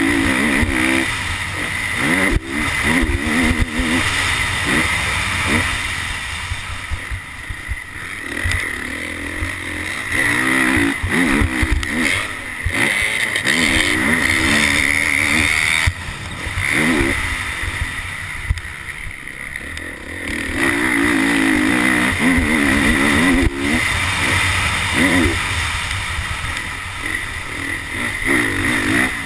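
Honda CRF450R's single-cylinder four-stroke engine revving up and falling back over and over as the rider opens and rolls off the throttle around the track. It eases off twice, about a third of the way in and again about two thirds in, with occasional knocks from the rough ground.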